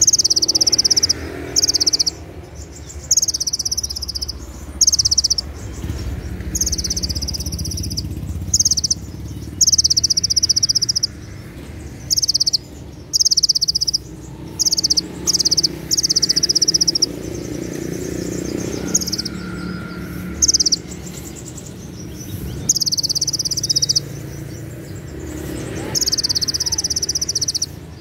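Male van Hasselt's sunbird (kolibri ninja) singing over and over in short, very high, shrill trilled phrases, each about a second long, one every second or two. This fast, sharp trill is the 'tembakan cililin' (cililin shot) that songbird-contest keepers prize.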